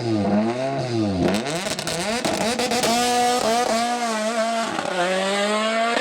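Race car engine at full attack on a hillclimb course, revving hard. Its pitch rises and falls several times in quick succession, then climbs repeatedly with short dips as it shifts up through the gears.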